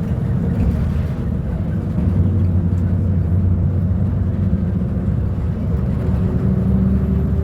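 Volvo B290RLE bus's diesel engine running, a deep steady drone with a few humming tones above it.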